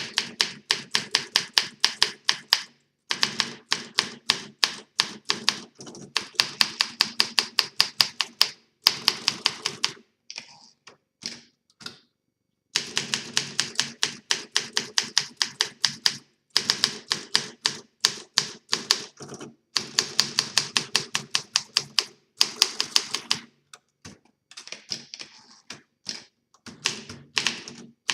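1956 Olympia SM3 DeLuxe manual typewriter being typed on: runs of quick, even keystroke clacks against its newly rubbered platen, broken by short pauses and a few softer, sparser stretches between runs.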